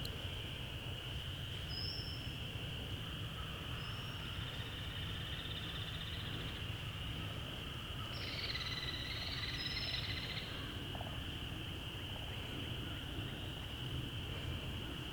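Woodland ambience: a steady high-pitched animal chorus, with short bird chirps about two and four seconds in and a longer bird call from about eight to ten seconds.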